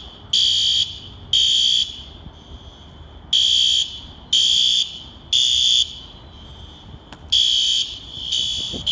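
System Sensor fire alarm horns sounding the temporal-3 evacuation signal: loud half-second blasts in sets of three, about a second apart, with a pause of about a second and a half between sets. No smoke or flames are in sight, and the alarm is taken for a false alarm.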